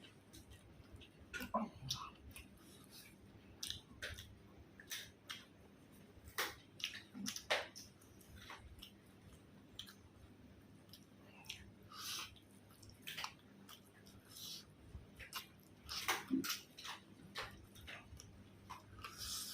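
A person chewing food close to the microphone, with irregular sharp mouth clicks and smacks.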